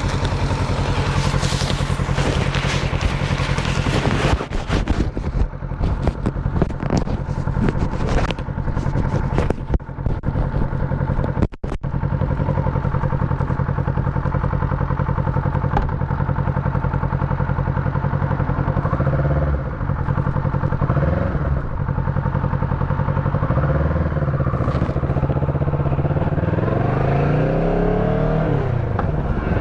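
Motorcycle engine running while riding, picked up by a microphone in the rider's pocket. Rustling and knocks of the microphone being handled in the first dozen seconds, then a steady engine note that rises and falls in pitch several times near the end as the bike changes speed.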